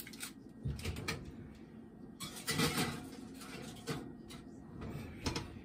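An oven door opened and a foil-lined baking pan slid in onto the rack, then the door shut: scattered clicks and knocks, a scraping slide a little over two seconds in, and a knock near the end.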